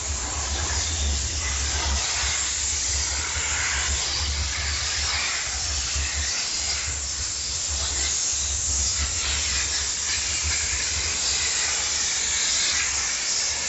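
Steam jet gun of a diesel-heated steam cleaner spraying steam: a steady, loud hiss with an uneven low rumble underneath.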